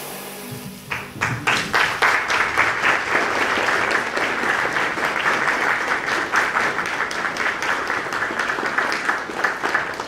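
Music fades out at the start, and about a second in an audience breaks into applause that carries on through the rest.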